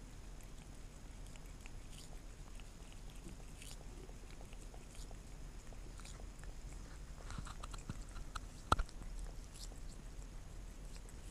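Cat licking jelly from a small plastic cup held in a hand: faint wet licking and smacking clicks of the tongue. A single sharp click stands out near the end.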